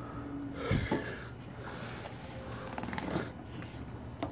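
A man straining and breathing hard with effort, with a few knocks and rattles of the mower under him.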